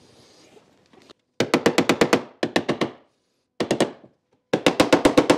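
Rapid metallic strikes in four bursts, about ten a second, each ringing briefly: tools working the steel body panels during bodywork straightening.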